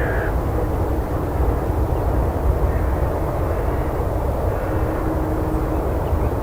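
Forest ambience: a steady low rumble with a short bird call right at the start and a few faint chirps later on.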